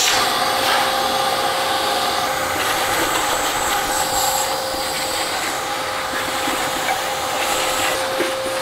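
Shop vacuum running steadily at full speed with a constant whine, its nozzle held against a truck's dirty, rusted front frame, sucking up dirt and debris.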